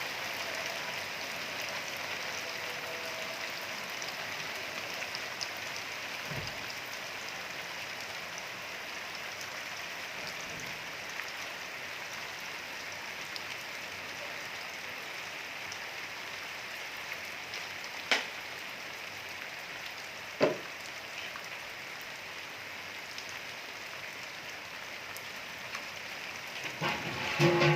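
Steady rain falling, an even hiss, with two sharp taps in the second half and a short clatter of knocks near the end.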